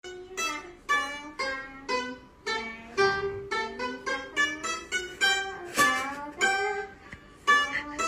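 Pipa (Chinese lute) being plucked in a slow melody, single notes one after another at about two a second, each ringing and dying away, some bending slightly in pitch.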